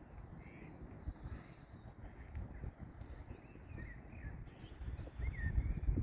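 Wind rumbling on the microphone, with a few small birds chirping in the background.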